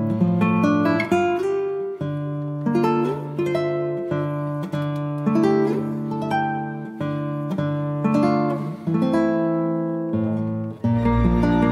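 Background music of a plucked acoustic guitar picking out a melody, the notes ringing and fading one after another. Near the end it cuts abruptly to a fuller, steadier piece with a deep bass.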